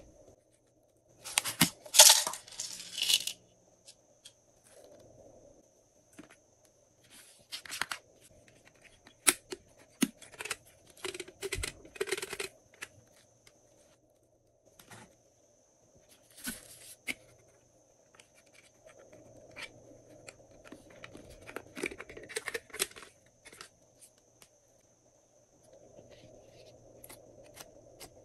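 Small containers of glitter, confetti and sprinkles shaken and tapped over a glass dish of white slime: several short rattling bursts, the loudest about two seconds in, and scattered light ticks as small pieces drop in. Softer, steadier handling noise comes near the end.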